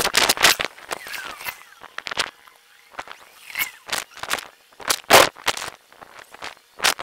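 Irregular bursts of crackling noise, several a second, with a quieter stretch a little before the middle.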